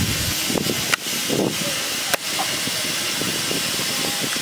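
Steady hiss of steam escaping from a Darjeeling Himalayan Railway steam locomotive standing in the shed, broken by two sharp clicks about a second apart.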